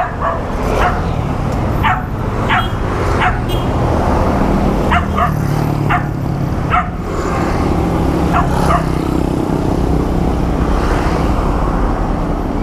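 A dog barking in short, sharp barks, about ten of them spread over the first nine seconds, over a steady low engine hum.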